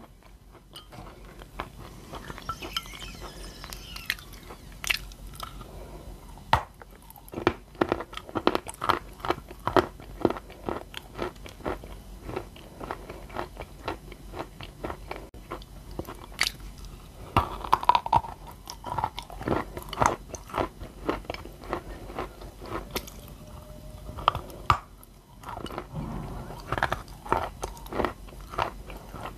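Close-up chewing of a mouthful of edible clay: a dense run of sharp crunches and crackles, with a brief lull about 25 seconds in.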